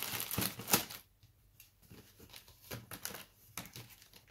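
Crinkling and rustling of inflatable air-column plastic packaging being handled, dense through the first second, then a few scattered light rustles and taps.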